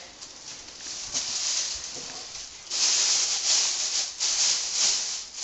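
Rustling and crinkling of something being handled, in uneven shakes, much louder from about two and a half seconds in.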